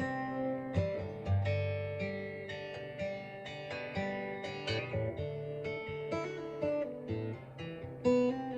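Acoustic guitar strummed, its chords ringing between repeated sharp strokes, with no singing.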